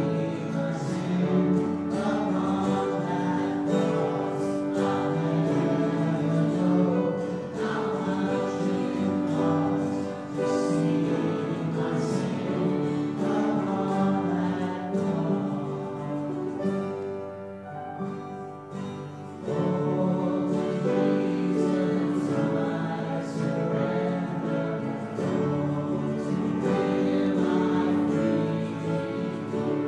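Voices singing a worship song together with instrumental accompaniment. The music drops away briefly about two-thirds of the way through, then starts up again.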